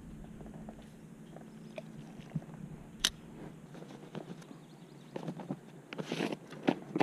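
A hand brushing and swatting at denim jeans: scattered soft rustles and taps, with one sharp click about three seconds in and a short scratchy rustle near the end.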